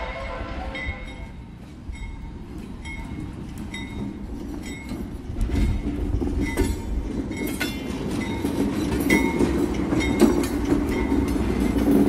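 Freight train rolling: a deep rumble with a short high ring repeating about every two-thirds of a second, and clattering knocks of the cars that grow louder through the second half.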